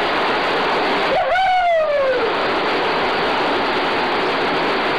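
Steady loud rush of falling water, like a waterfall. About a second in, a person's voice calls out once, sliding down in pitch.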